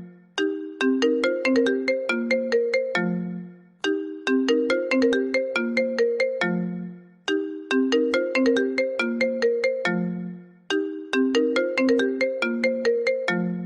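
iPhone ringtone playing: a short melody of quick plucked notes that ends on a lower held note and repeats about every three and a half seconds, four times here.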